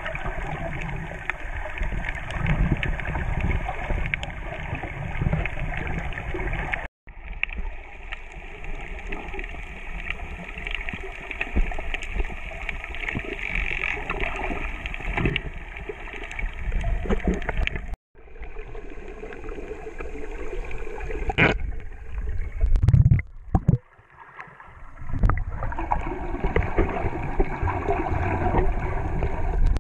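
Muffled underwater sound from a submerged camera among snorkellers: a steady rush of water with gurgling. It breaks off abruptly a few times, where the footage is cut.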